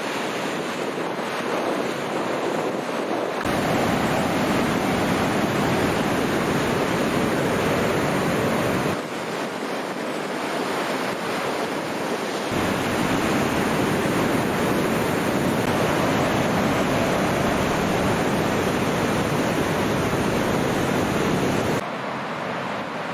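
Ocean surf breaking and washing in, with wind rumbling on the microphone; the rumble and overall level jump up and down abruptly several times.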